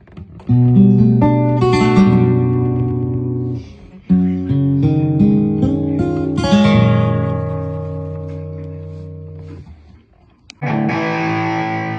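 Seagull Performer CW GT QI acoustic guitar with a cedar top, played unplugged: full chords strummed and left to ring out, fading slowly. One strum comes about half a second in, another around four seconds, and a last chord just before the end.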